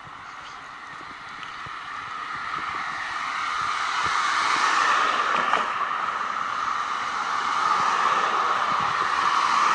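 Passing vehicle noise, a steady rush that grows louder over the first five seconds, eases a little, then swells again near the end.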